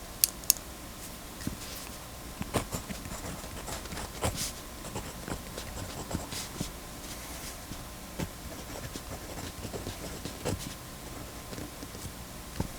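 0.5 mm mechanical pencil writing on paper: irregular light scratches and taps of the lead, with two sharp clicks just after the start.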